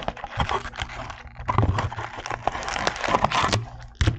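Plastic wrapping on sealed football-card packaging crinkling and tearing open: a dense run of sharp crackles and snaps.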